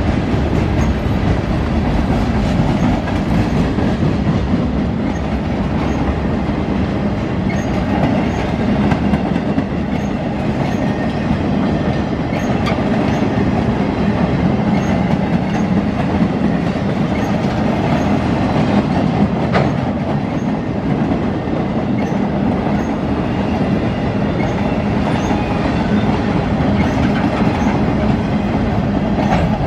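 Freight train rolling steadily past, its cars' wheels clicking over the rail joints with a continuous loud rolling noise.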